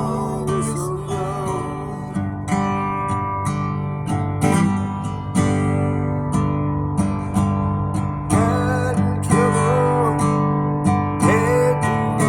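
Music: a guitar strummed in a steady rhythm, with a wavering melody line above it.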